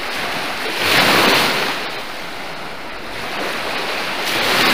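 Small waves on Lake Huron washing in on the shore, a steady wash that swells twice, about a second in and again near the end.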